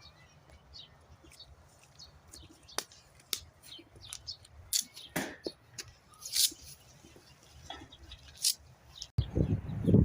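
Birds chirping in short, scattered calls, with a loud low thump near the end.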